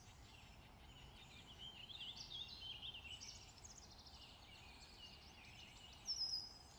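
Faint outdoor birdsong: many short chirps and twitters overlap over a low background hiss, and one louder, high call comes near the end.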